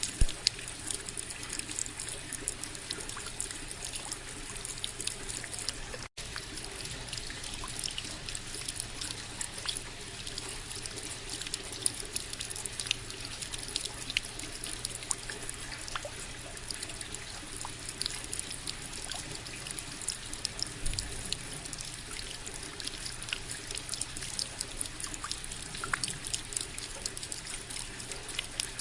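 Steady rain falling, with many separate drops and drips ticking through the even hiss. The sound cuts out for an instant about six seconds in.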